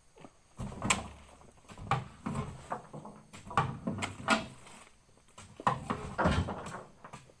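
Oil palm fruit bunches thrown into a steel tractor trailer, landing with heavy thuds and metallic knocks in about four bursts.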